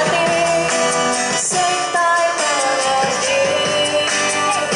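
Live band music: a woman singing a melodic line into a microphone over strummed acoustic guitar and band accompaniment.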